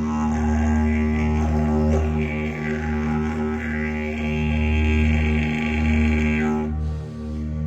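Didgeridoo played as a continuous low drone, its overtones sweeping up and down as the mouth shapes the sound, with a brief dip in level near the end.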